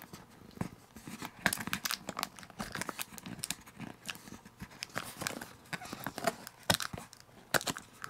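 Fingers and fingernails picking, scratching and peeling at a clear plastic seal sticker on a cardboard box, making irregular small clicks, scrapes and crinkles as the sticker is worked loose.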